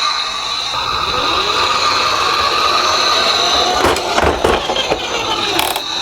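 Toy minicars rolling down a slope track, their wheels rumbling continuously over a steady high-pitched tone, with a few clattering knocks about four seconds in and again near the end.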